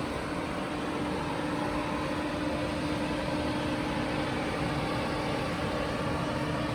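Jeep Cherokee XJ idling with its electric radiator cooling fan running: a steady rushing of air over a constant hum.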